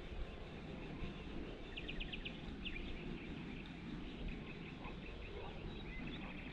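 Wind rumbling steadily on the microphone. About two seconds in, a bird gives a quick run of about five short, high chirps.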